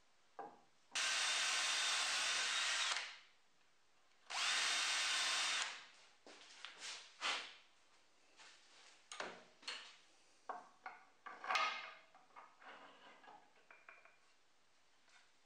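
Cordless drill boring a hole in birch plywood, in two runs of about two seconds and about a second and a half, followed by scattered knocks and clicks of wood and parts being handled.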